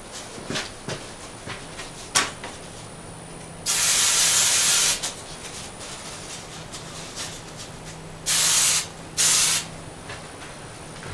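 Aerosol can spraying: one hiss of a little over a second near the middle, then two short hisses close together near the end. A sharp knock comes about two seconds in.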